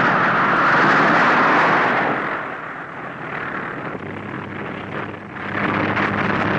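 Piston engine of a biplane fighter running, loud and rushing for the first two seconds, then dropping quieter. About five and a half seconds in it comes back louder with a steady low engine drone.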